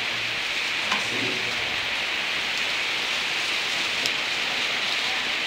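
Steady rain falling in a sunshower, pattering on pool and pond water and wet paving, with a couple of brief sharp ticks about a second in and about four seconds in.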